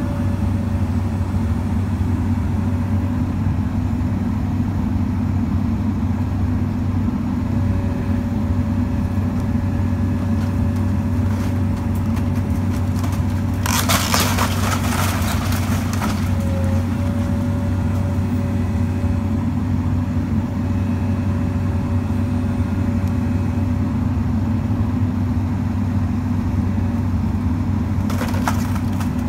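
Komatsu PC200 LC excavator's diesel engine running steadily under load. About 14 s in, a couple of seconds of cracking and crunching as the bucket breaks into the house's wooden roof, with a few more sharp cracks near the end.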